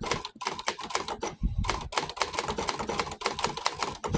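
Typing on a 1962 Hermes 3000 manual typewriter: a rapid, irregular run of keystrokes, each a sharp clack of a typebar striking the platen, with a couple of heavier thumps among them.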